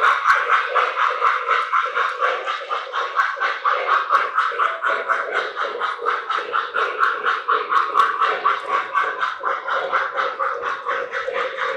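Lionel O-gauge model train running on its track, a steady hum with a quick, even clicking about four times a second.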